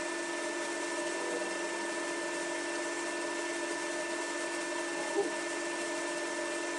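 SawStop 1.75 hp cabinet table saw running at a steady hum while boards are fed past the blade. A small short knock comes about five seconds in.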